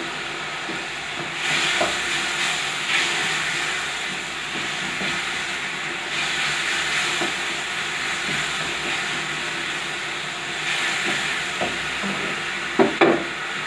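Spiced onion gravy hissing and bubbling in a kadai as freshly added water comes to the boil, with a wooden spatula stirring and scraping through it. Two sharp knocks near the end.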